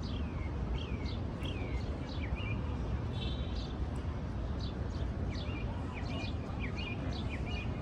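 Steady rush of water spilling over a river dam, with small birds chirping repeatedly over it in short falling notes.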